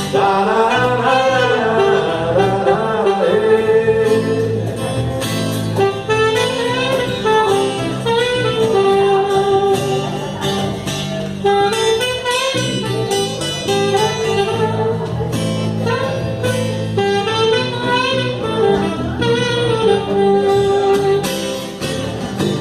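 Saxophone playing a melody line over acoustic guitar accompaniment.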